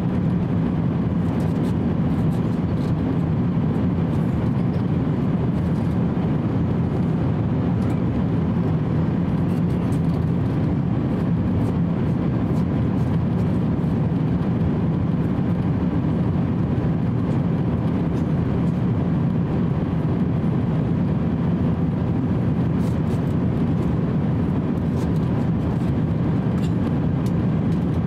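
Steady cabin drone of an Airbus A350-900 at cruise altitude: the Rolls-Royce Trent XWB engines and the airflow over the fuselage, heard from inside the passenger cabin as an even, deep rushing with a faint steady hum over it.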